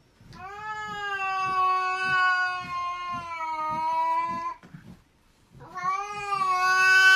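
A cat yowling: one long drawn-out call of about four seconds, its pitch sinking slightly, then a second long call starting after a short break.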